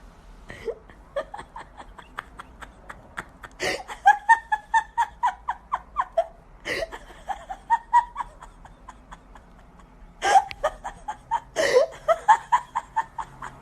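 Laughter in several bouts of quick repeated pulses, about four a second, with louder bursts a few seconds apart.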